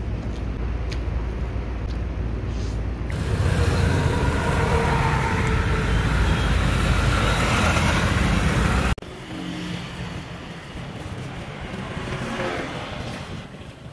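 Street traffic: a motor vehicle running close by with a steady low rumble, louder for several seconds, then cutting off abruptly about nine seconds in to a quieter street background.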